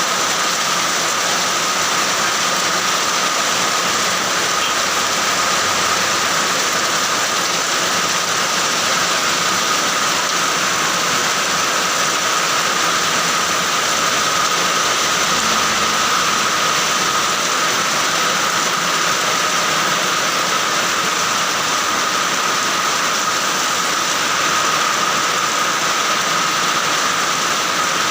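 Heavy rain falling steadily: an even, unbroken hiss that does not change.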